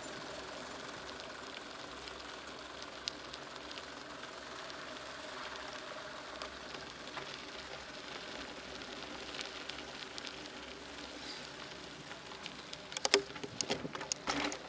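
Bicycle tyres hissing steadily over wet asphalt as the bike rolls along. Near the end comes a quick cluster of sharp clicks and rattles from the bike.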